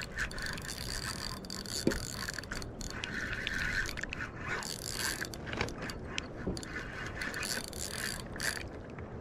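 Fishing reel being cranked to take in line, its gears whirring and clicking in several spells with short pauses between.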